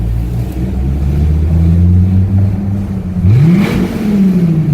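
2014 Dodge SRT Viper GTS's 8.4-litre V10 on its stock exhaust running steadily. About three seconds in the revs climb sharply under throttle, then fall away.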